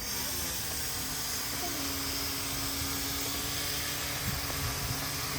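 A steady low hum over a constant hiss, unchanging throughout.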